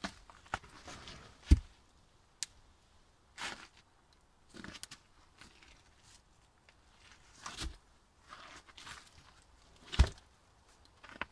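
Boots crunching on snow while rotten pine logs are shifted about, with two heavy wooden thuds of a log coming down onto the others, about a second and a half in and again near the end.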